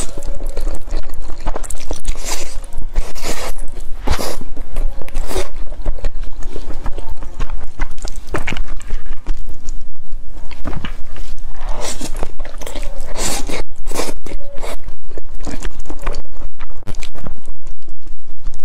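Close-miked slurping and chewing of thick noodles in a sticky dark sauce: a quick, uneven run of wet mouth sounds.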